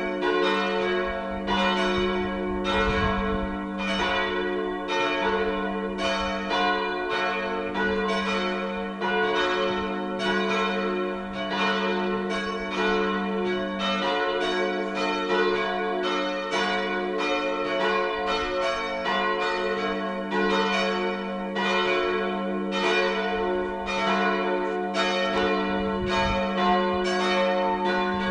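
Full peal of a village church's bells, all the bells swinging and ringing together. The strikes overlap in a continuous, irregular clangour over a deep tone that is held throughout.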